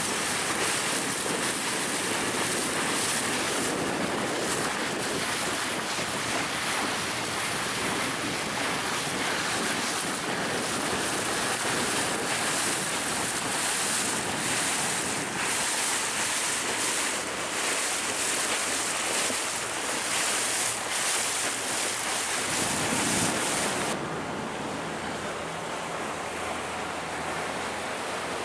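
Water rushing past the hull of a moving boat, with wind buffeting the microphone in irregular gusts. About four seconds before the end the hiss drops and softens, leaving a faint low hum underneath.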